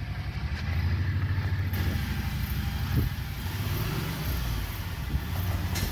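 Kawasaki Mule utility vehicle's engine running at a low, steady pace as it creeps forward at walking speed, with a couple of short clicks.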